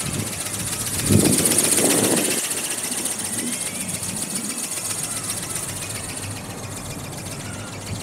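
Small electric RC ornithopter flapping overhead: its brushless motor and gear drive make a high, rapidly pulsing whir that swells about a second or two in and fades as it flies off. Strong wind buffets the microphone, gusting loudest about a second in.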